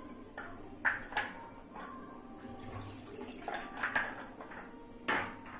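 Watery fish-curry gravy heating in a kadai on a gas stove, a steady low hiss, broken by several sharp clicks and knocks as a plastic water bottle is capped and put down. The loudest knock comes near the end.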